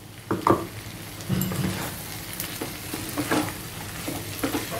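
Brinjal pieces sizzling as they fry in a kadai, stirred and scraped with a wooden spatula, with a few knocks of the spatula against the pan, the loudest about half a second in.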